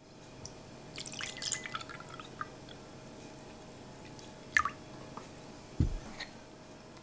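Apple juice poured from a carton into a glass, splashing and trickling for the first few seconds. A sharp clink follows, then a short low thud as the carton is set down on the table.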